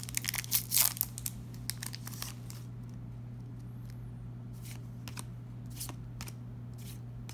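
A foil trading-card booster pack being torn open and crinkled, a dense run of sharp crackles for about the first two seconds, followed by a few soft clicks as the cards are handled. A steady low hum runs underneath.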